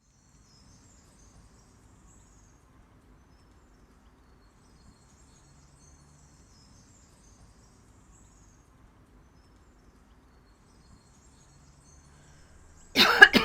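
Faint rural outdoor ambience with a low rumble and scattered distant bird chirps. Near the end a sudden loud noisy burst of about half a second breaks in.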